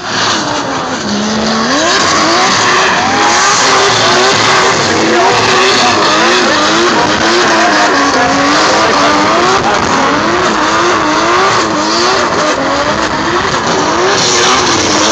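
Drift car doing victory skids, a smoky burnout: the engine revs climb about a second in and then rise and fall over and over as the spinning rear tyres skid and squeal.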